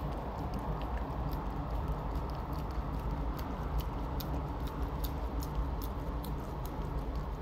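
Siberian husky puppy lapping yogurt from a small paper cup: quick, irregular wet licking clicks, roughly three a second, over a steady low rumble of a car's cabin.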